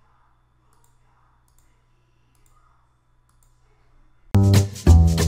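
A few faint computer mouse clicks over near silence, then music with a strong bass line starts suddenly about four seconds in and is the loudest sound.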